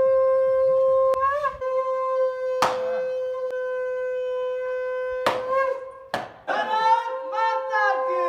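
Conch shell (shankh) blown in one long, steady note, wavering briefly about a second in. Near the end a group of men start shouting over it.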